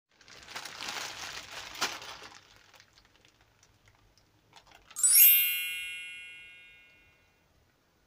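Plastic bags crinkling and crumpling for about two seconds, with one sharp crack partway through. Then a bright chime strikes suddenly, the loudest sound, and rings out, fading over about two seconds.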